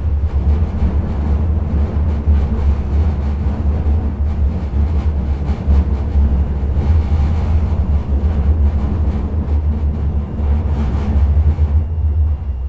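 Interior running noise of a Sheffield Supertram Class 399 tram-train under way: a steady low rumble of wheels on rail with a hiss of track and body noise over it. Near the end the hiss thins out and it gets a little quieter.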